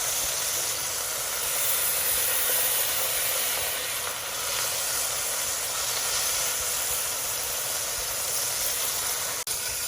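Corned beef brisket searing fat side down in hot olive oil in a Dutch oven: a steady sizzle, dropping out for an instant near the end.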